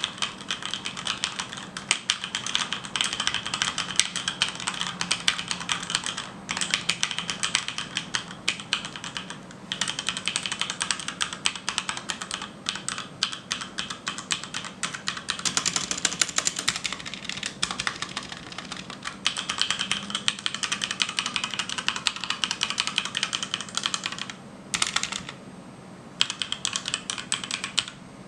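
Fast typing on a HyperX Alloy Origins mechanical keyboard with HyperX Red linear switches: a dense run of key clicks, broken by a few brief pauses.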